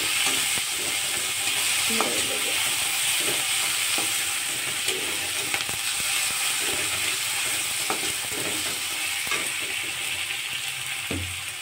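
Chopped onion, tomato and green chilli sizzling in hot mustard oil in a karahi, with a metal spatula scraping and knocking against the pan at irregular intervals as the mixture is stirred.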